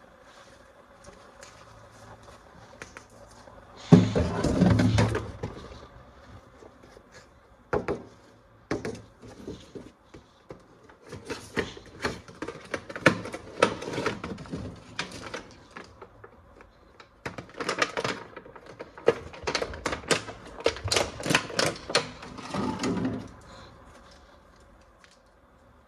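Hands handling plastic toys and packaging: clusters of sharp clicks and clatter, with a louder knock and rattle about four seconds in.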